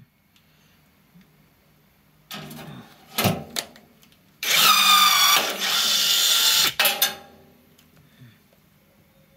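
Cordless blind rivet gun setting a large rivet in thin sheet steel. There is a short whir and a few clicks, then its motor runs with a loud whine for about two seconds and stops with a couple of clicks.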